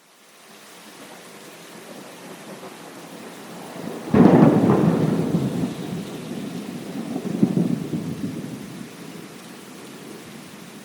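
Thunderstorm: steady rain fades in, then a sharp thunderclap breaks about four seconds in and rolls into a long rumble, with a second swell of rumbling a few seconds later before it dies back under the rain.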